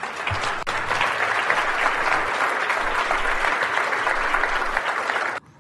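Audience applauding, dense steady clapping that cuts off suddenly near the end.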